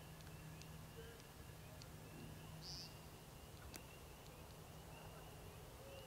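Faint night chorus of small animals: short, slightly rising chirps repeating two or three times a second, with a few faint clicks over a low steady hum.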